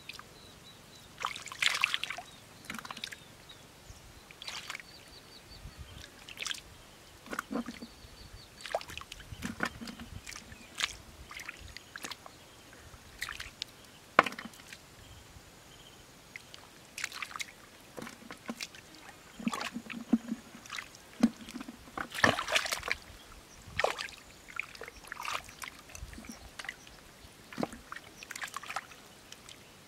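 Bare hands splashing and squelching through shallow muddy water, groping in the mud for fish: irregular wet slaps and sloshes, a few louder splashes among softer dribbles.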